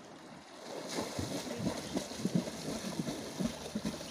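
People swimming and splashing in a shallow river pool: irregular slaps and splashes of water, busier from about a second in.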